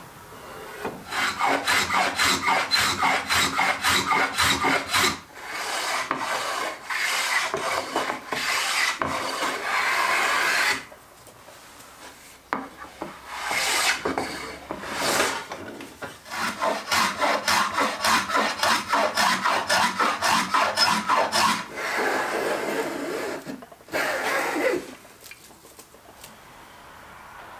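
Hand-sanding a wooden board with a sanding block: rapid back-and-forth rubbing strokes in several long runs, broken by short pauses.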